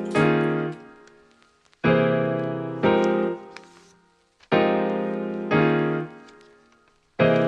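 Background music: pitched chords struck in pairs about a second apart, each ringing and fading before the next pair.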